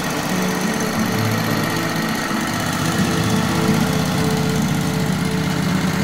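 Wood-Mizer LT15 portable sawmill running steadily, its engine driving the band blade through a log mid-cut.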